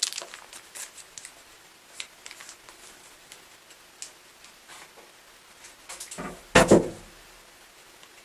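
Paperback books in plastic covers being handled and set down on a stack: light taps, clicks and plastic rustles, with a louder double thump about two-thirds of the way through.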